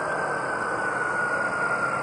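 Space Shuttle orbiter rolling out on the runway after touchdown, drag chute deployed: a steady rushing noise with a thin high whine that slowly falls in pitch as the orbiter slows.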